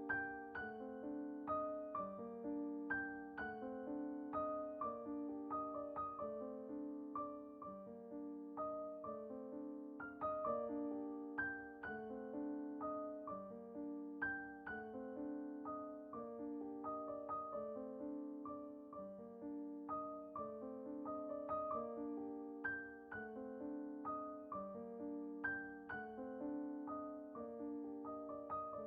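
Soft background piano music: a gentle, even, repeating pattern of notes.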